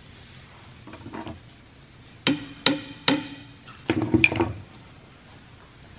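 Small hand carving gouge stabbed down into a clamped wooden rifle stock for chip carving: sharp knocks, three about half a second apart and then a quick cluster, each ringing briefly.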